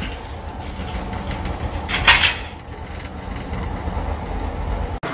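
Wheel loader diesel engines running in a steady low rumble, with a short loud noisy burst about two seconds in.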